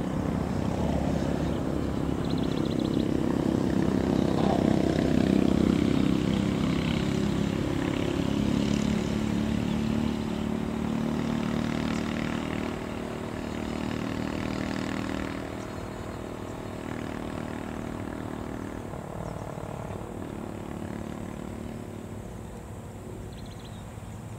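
Fishing boat's inboard engine running steadily, louder about five seconds in, then slowly fading as the boat moves away.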